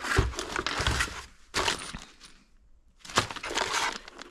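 Hardware and other stored odds and ends rattling and knocking as they are rummaged through by hand: a run of irregular clicks and clunks, a pause of about a second, then more clatter near the end.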